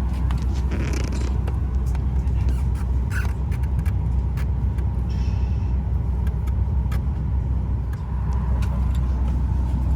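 Steady low rumble in the cabin of a Boeing 737-900ER parked at the gate, the airliner's air-conditioning running, with scattered small clicks and knocks.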